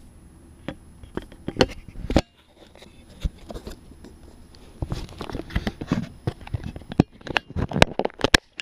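Irregular plastic clicks, knocks and rubbing from a GoPro being handled in and around its clear plastic waterproof housing, picked up by the camera's own microphone. There is a cluster about two seconds in, then a dense run of clicks from about five seconds in to near the end.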